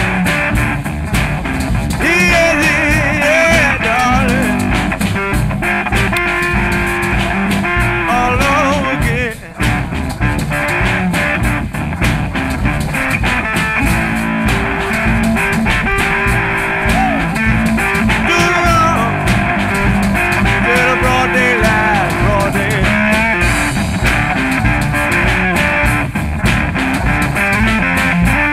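Background blues-rock music with guitar, with a brief drop in level about nine seconds in.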